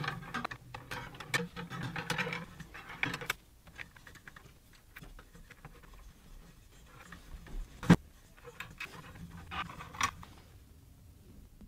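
Metallic clicking, rattling and scraping as a steel Acme lead screw is fed through the nut blocks on a CNC machine's aluminium-rail gantry, busiest over the first few seconds. One sharp knock about eight seconds in, and a few more clicks near the end.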